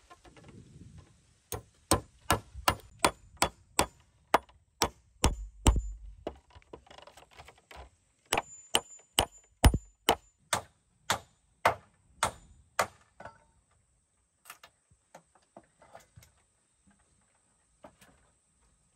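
Steel claw hammer driving nails into round wooden poles, with two runs of quick, ringing strikes, about two or three a second. A few lighter, scattered knocks follow near the end.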